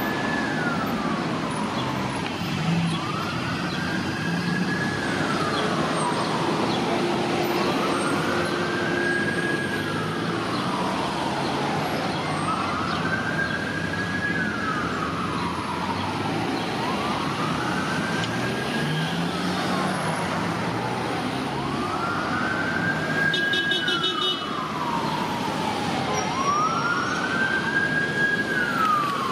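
Emergency vehicle siren sounding a slow wail, over street traffic. Its pitch rises, holds briefly at the top, then falls away, repeating about every four and a half seconds.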